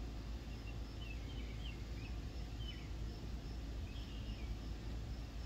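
Outdoor ambience: faint, short bird chirps every second or so over a steady low rumble, with a faint high note pulsing about twice a second.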